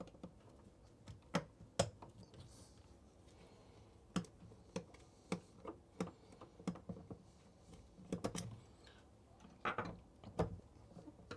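Faint, irregular light clicks and taps of a Phillips screwdriver and small metal faucet parts as the handle screw is worked out of a bathroom faucet.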